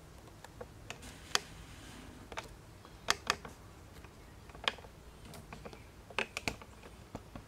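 Handling noise: about a dozen light clicks and taps at irregular intervals over a faint low hum.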